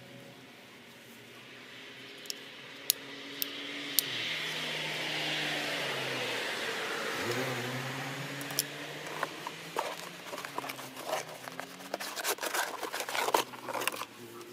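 A motor vehicle passing in the background, its engine note gliding, swelling and then dipping in pitch as it goes by. Over it come sharp plastic clicks from handling the compressor and, in the last few seconds, a rapid run of clicks and paper rustling as the instruction booklet is taken out.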